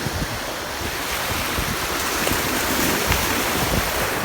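Ocean surf washing ashore, a steady hiss that swells and eases off, with wind buffeting the microphone.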